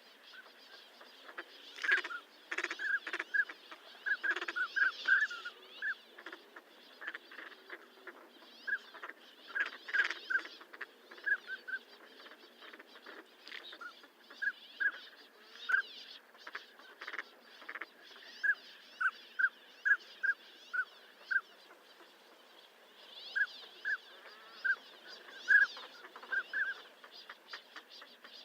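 Northern pintails calling: short, high whistled notes given in quick runs of several, with pauses between runs, mixed with brief raspy sounds.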